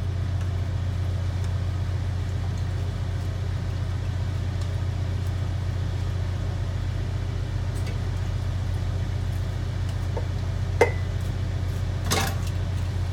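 A steady low mechanical hum, like a running engine or machinery, with a sharp click that rings briefly about eleven seconds in and a softer knock a second later.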